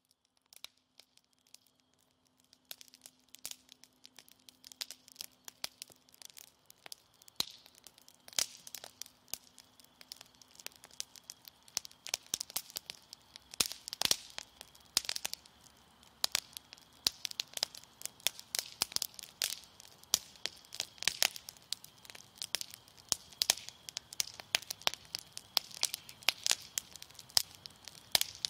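Irregular sharp crackling clicks, sparse at first and growing denser and louder, over a faint steady tone.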